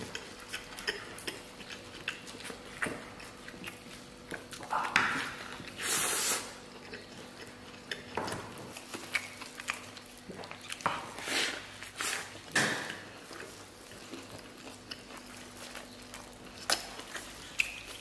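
A man chewing a big mouthful of a flatbread wrap stuffed with beef, pickled greens and potato shreds: irregular wet smacks and mouth clicks, with a few louder swishes.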